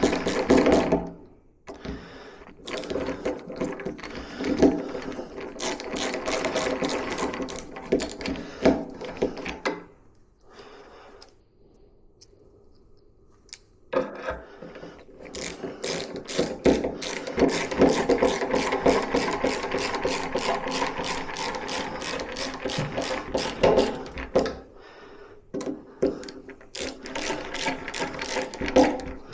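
Cordless drill-driver running screws into a door lock fitting: a motor whine with dense rapid clicking, in several runs, with a short pause about a second and a half in, a quieter stretch from about ten to fourteen seconds, and a brief gap about twenty-five seconds in.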